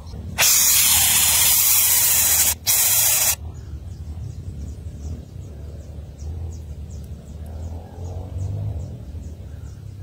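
Nestling bird hissing: one long, loud hiss of about two seconds, then after a very brief break a shorter second hiss. This is the defensive threat hiss that nestlings give when disturbed in the nest.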